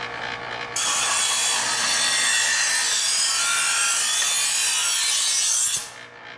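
Chef's Choice electric knife sharpener grinding a steel blade in its first, coarsest stage: a loud, even, hissing grind for about five seconds as the knife is drawn through the slot against the spinning abrasive wheels. It starts suddenly under a second in and stops suddenly near the end when the blade leaves the slot.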